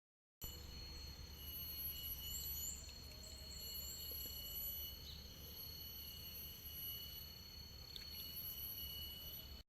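Outdoor ambience: a steady, high, multi-toned insect drone, with a few faint short bird chirps a couple of seconds in, over a low rumble.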